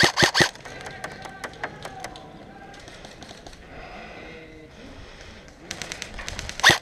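Airsoft replica rifle firing full-auto bursts, about seven shots a second: a burst stops about half a second in, a quieter stretch with scattered distant shots follows, and another fast burst starts near the end.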